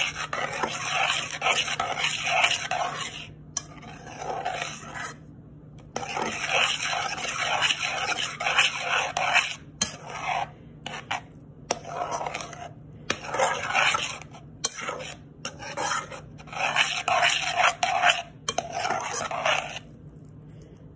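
Metal spoon stirring and scraping instant mashed potatoes in a dish, in spells of quick, rhythmic strokes with short pauses; the stirring stops about a second before the end.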